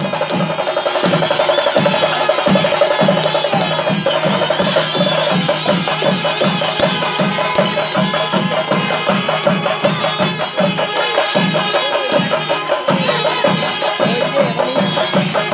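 Festival drumming with an even beat of about two to three strokes a second. Plastic toy trumpets are blown over it in a steady warbling buzz.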